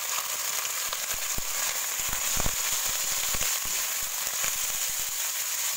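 Marinated chicken pieces sizzling in hot oil in a wok, with a steady high hiss. A slotted metal spatula scrapes and knocks against the pan as the chicken is stirred, with a run of clanks in the middle.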